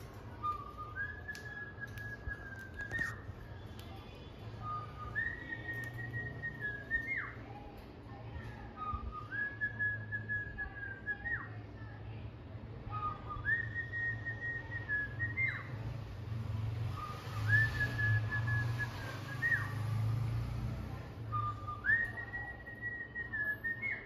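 A short whistled phrase repeated six times, about every four seconds: a brief lower note, then a held higher note ending in a quick upward flick.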